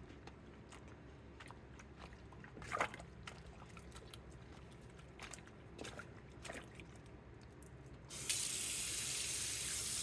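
Faint splashes and small knocks of hand-washing in a sink. About eight seconds in, a water tap is turned on and runs in a loud, steady stream, filling the sink for a rinse.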